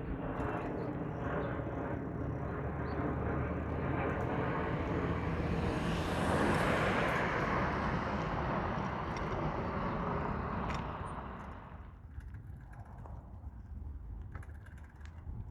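A vehicle passing close by: its noise swells to a peak about six seconds in and fades away by about twelve seconds, over steady traffic sound.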